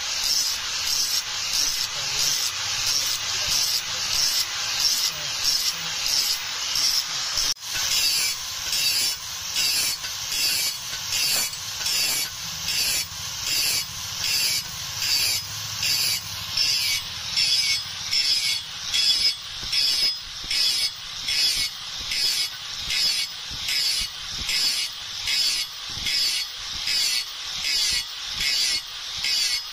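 Steady back-and-forth rasping strokes of a hand abrasive tool on steel, about three strokes every two seconds, with a brief break about a quarter of the way through.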